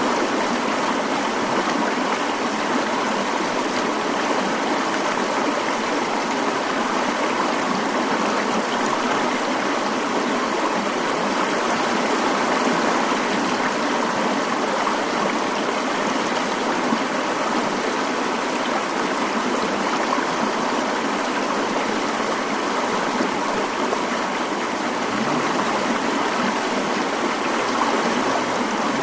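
Mountain stream running steadily over rocks, an even rush of water with no deep rumble.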